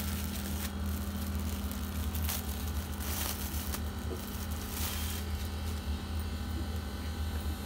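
Clear plastic packaging crinkling in irregular bursts as a folded dupatta is pulled out of its packet and the plastic is handled, over a steady low hum.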